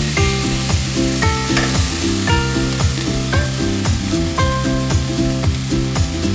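Chicken feet adobo sizzling and frying in a pan, with a steady hiss, under background music with a stepping bass line and a regular beat.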